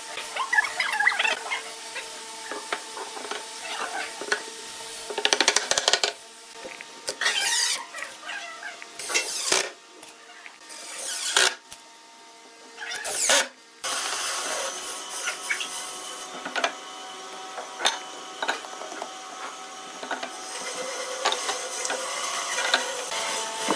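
Notched wooden rails being handled and fitted together by hand at half-lap joints: scattered knocks and clicks of wood on wood, with several short rubbing bursts between about five and fourteen seconds in.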